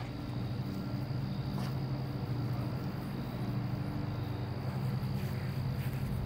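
A steady low hum, with insects trilling steadily at a high pitch in the background.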